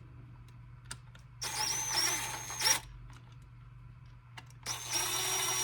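A small cordless power driver spinning in two bursts of about a second and a half each, its motor whine climbing and then holding steady, as it backs screws out of a drill's plastic housing.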